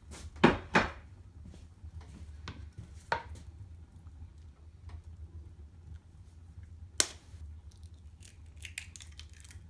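Bacon frying in a pan on a cast iron wood stove, its fat giving off faint scattered crackles and pops. A plastic spatula clatters against the pan twice just under a second in and knocks again about three seconds in. About seven seconds in there is a single sharp crack as an egg is broken on the pan's rim.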